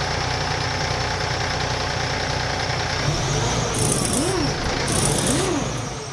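Heavy truck engine running steadily, with two short bursts of air hiss about four and five seconds in, fading near the end.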